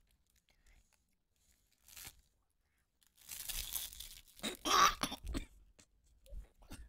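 Close-mic chewing of a thick, chocolate-coated protein bar: wet crunching and mouth noises in a few bursts, about two, three and a half and five seconds in.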